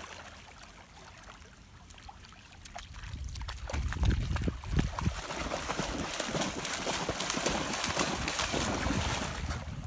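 Dogs wading and splashing through shallow lake water, the splashing getting louder about three seconds in and busiest near the end.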